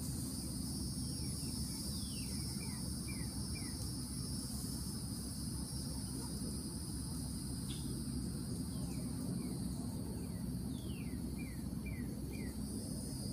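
Woodland insects buzzing steadily in two high-pitched bands, with a bird calling twice in quick runs of short falling notes, over a steady low rumble.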